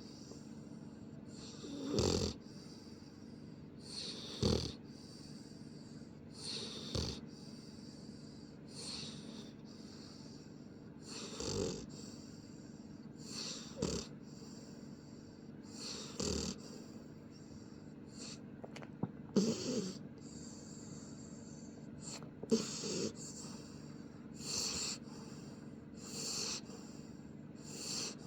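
Pit bull puppy snoring in its sleep: a slow, regular run of snores, about one every two to two and a half seconds, some louder than others.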